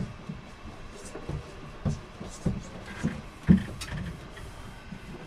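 Irregular knocks and thumps, about six of them, the loudest about three and a half seconds in, over a faint steady background.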